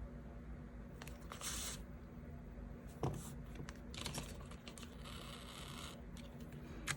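Masking tape being torn and pressed down onto a paper diary page: a few short papery tearing rasps, with a light click about three seconds in.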